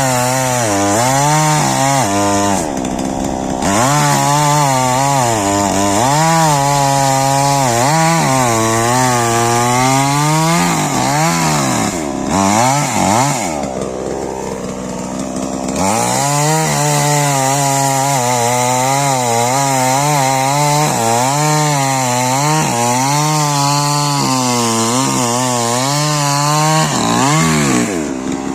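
Stihl MS 881 two-stroke chainsaw running hard while cutting wood, its engine note sagging and recovering again and again under load, with a deeper drop in pitch about halfway through.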